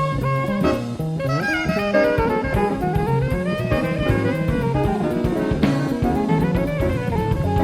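Live jazz-fusion band playing, with a saxophone lead over drum kit, bass and keyboards, heard from a cassette tape recording.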